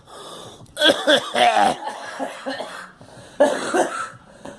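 A girl coughing in two fits of rough, voiced coughs, one about a second in and another past three seconds.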